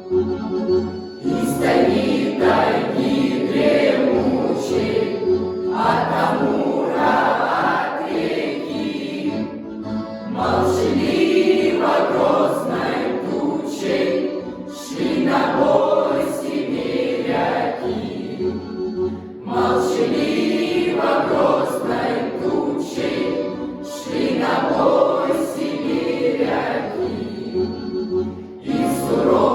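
A choir of voices singing a song together in long phrases, over an instrumental accompaniment.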